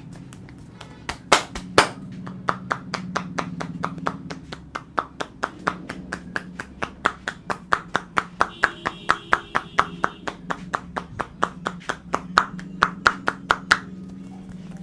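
A barber's hands slapping rhythmically on a client's head during a head massage: a fast, even run of sharp clap-like pops, about four a second, that stops near the end. A steady low hum runs beneath.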